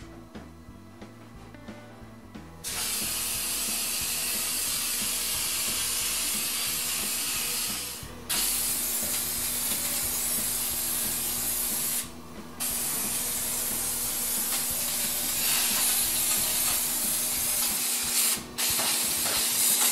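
Aerosol spray adhesive hissing from a can in long continuous sprays as glue is laid on the car's floor pan and the back of the carpet. The spraying starts about three seconds in and stops briefly three times: about eight seconds in, around twelve seconds in, and shortly before the end.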